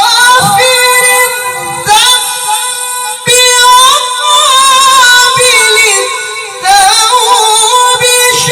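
A man's high-pitched Quran recitation in the melodic tilawah style: long held, ornamented notes wavering up and down. He starts fresh phrases about two seconds, three seconds and nearly seven seconds in.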